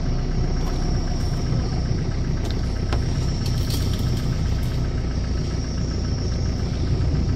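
Safari vehicle's engine idling steadily, with a thin steady insect drone over it.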